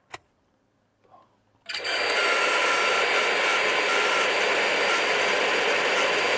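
A click, then about a second and a half later the Tefal ActiFry's hot-air fan starts and runs with a steady, even rushing whir and a faint high whine. The appliance has been powered up to test whether its stirring motor turns.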